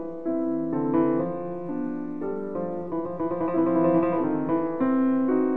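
Piano music: a melody of single notes over held chords, changing every half second or so.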